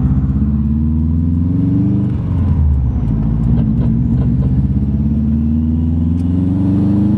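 2005 Subaru WRX's turbocharged flat-four engine pulling up through the gears: the revs climb, drop at a gear change about two seconds in, then climb steadily again. The engine has a slight misfire that the owner puts down to a failing coil pack.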